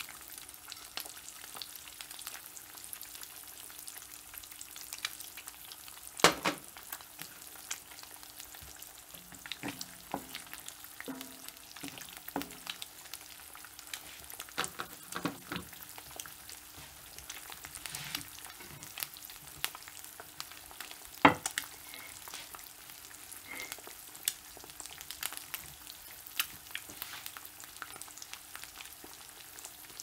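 Two eggs frying in a cast iron skillet: a steady sizzle with frequent small crackling pops, and two louder pops about six seconds in and again about two-thirds of the way through.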